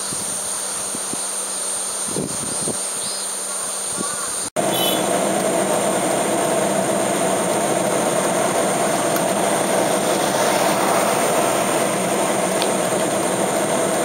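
Cicadas buzzing steadily in a high, constant drone. About four and a half seconds in, the sound cuts out for an instant and a louder, steady rushing noise sits under the cicadas for the rest of the time.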